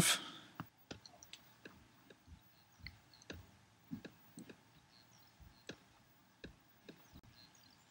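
Faint, irregular clicks and ticks, about two or three a second, over a quiet background.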